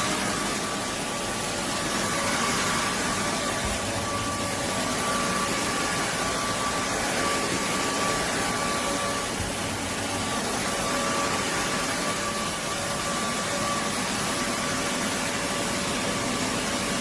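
Roborock F25 LT wet-and-dry vacuum mop running steadily: an even rush of suction and airflow with a faint high motor whine held at one pitch.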